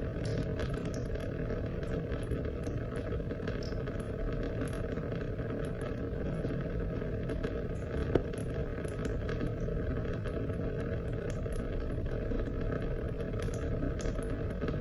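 Steady rain: a dense, low hiss with many small, sharp drop ticks scattered through it, and one louder drop about eight seconds in.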